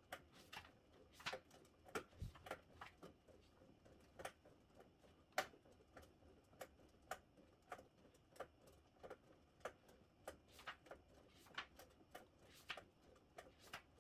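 Faint, repeated clicking from an EGOJIN recumbent exercise bike being pedalled, about two clicks a second.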